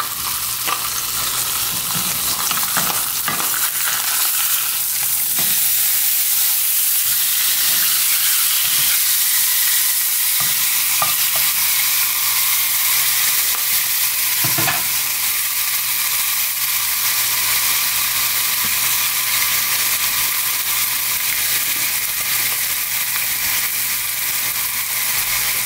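Brook trout fillets sizzling in hot fat in a cast-iron skillet: a steady frying hiss. A few light knocks and scrapes in the first half or so come from the fillets being turned in the pan, and after the first few seconds the sizzle grows a little louder.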